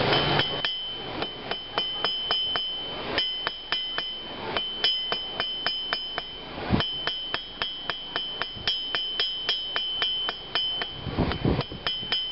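Blacksmith's hammer striking iron on an anvil in quick, even blows, about four a second, each blow ringing with a high, clear tone, with a few brief pauses between runs.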